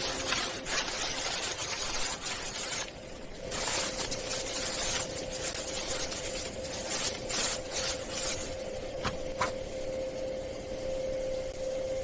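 Scraping and rasping noise with many short clicks and knocks, over a faint steady hum.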